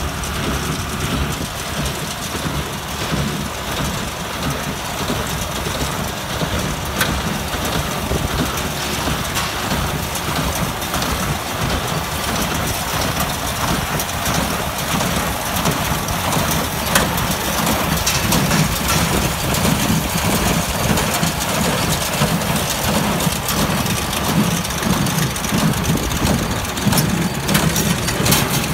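Kubota M7040 tractor's four-cylinder diesel engine working steadily under load as it pulls a New Holland BC5070 Hayliner small square baler, with the baler running behind it. It grows a little louder about halfway through.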